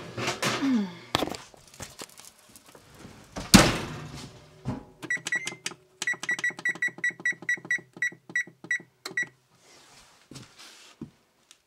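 Electric range's control panel beeping at each key press: a quick run of short, identical high beeps, about five a second, as the oven temperature is set. Before it come knocks and a loud thunk about three and a half seconds in.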